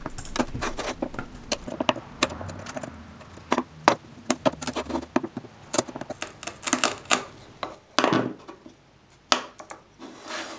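Hand wood chisel paring and prying out the waste along a saw cut in a maple frame: irregular sharp clicks, snaps and short scrapes of steel on hardwood, with small chips breaking away.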